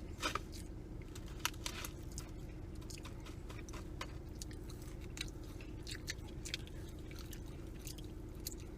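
Close-miked chewing and biting of fried food, with irregular wet mouth clicks and light crunches, over a steady low hum.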